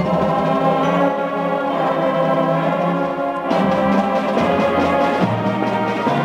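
Children's brass marching band striking up together in full, held chords to open a slow ballad, with the chord changing about three and a half seconds in.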